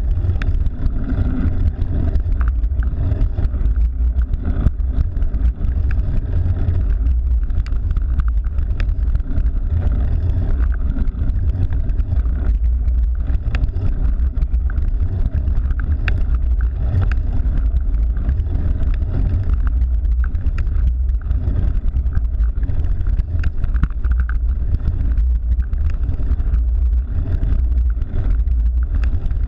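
Wind buffeting the microphone of a camera on a moving bicycle: a steady, loud low rumble, with small clicks and rattles scattered through it.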